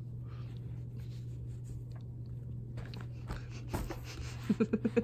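Soft rustles and light knocks of a Ragdoll cat biting and batting a cloth catnip banana toy on carpet, over a steady low hum. Near the end comes a quick run of short, low pulses.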